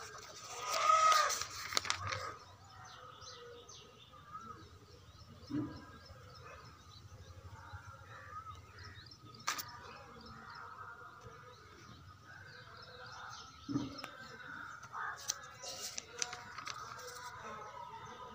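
Outdoor background with birds chirping, and a louder call with a sliding pitch about a second in. The paper pages of an exam booklet rustle as they are handled and turned, with a sharp click near the middle.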